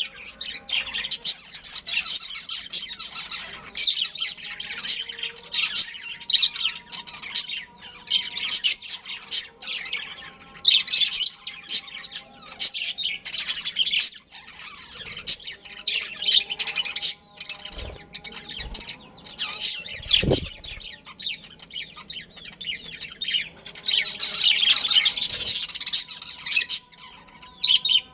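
Budgerigars chirping and chattering continuously in quick, high, warbling bursts, with a brief low thump about two-thirds of the way through.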